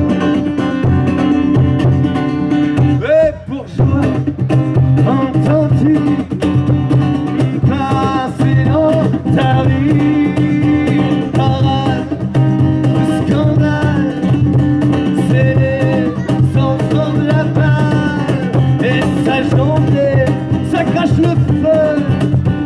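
Live acoustic music: a man singing to a strummed acoustic guitar, with a cajón keeping the beat. A brief break about three seconds in, then the song carries on steadily.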